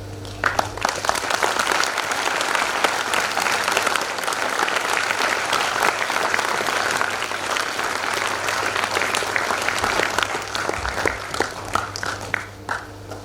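Audience applauding: the clapping starts about half a second in, holds steady, and thins out to a few scattered claps near the end.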